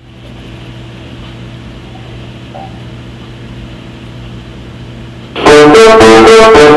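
A steady low hum with faint hiss, then about five seconds in, loud instrumental background music with guitar and piano starts abruptly.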